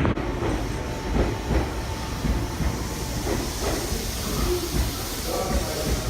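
Meitetsu electric commuter train running, heard from on board: a steady rumble and hiss with wheels thumping now and then over the rail joints.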